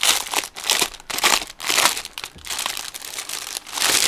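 Clear plastic bag crinkling loudly as hands open it and handle it, in irregular bursts of crackle.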